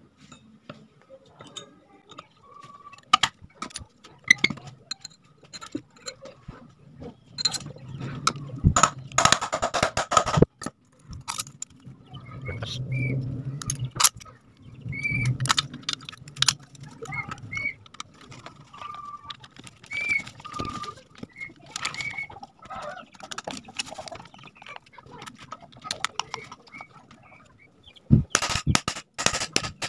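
Clicks, scrapes and metal knocks as the end cover of an electric water-pump motor is fitted back on and its screws are driven in with a screwdriver, with the busiest handling about a third of the way in and again near the end. Birds call now and then in the background.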